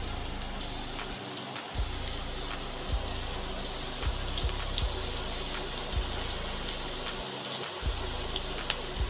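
Pakoras deep-frying in hot oil in a kadai: a steady sizzle with scattered pops and crackles. A low hum runs underneath and drops out briefly twice.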